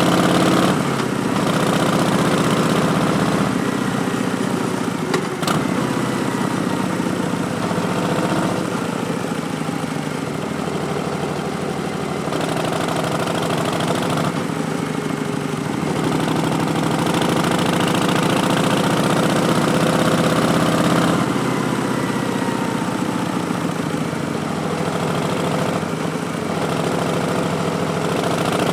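Harley-Davidson Street Bob's Milwaukee-Eight V-twin running through Vance & Hines Twin Slash slip-on mufflers, its pitch rising and falling with the throttle. A sharp click sounds about five seconds in.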